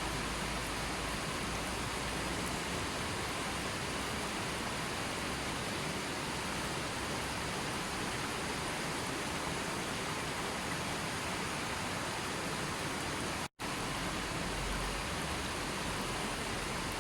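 Continuous, even rushing-water noise, cutting out to silence for an instant about thirteen and a half seconds in.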